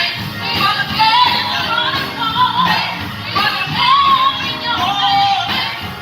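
Singing with musical accompaniment: a high voice holds and glides between long sustained notes over the band.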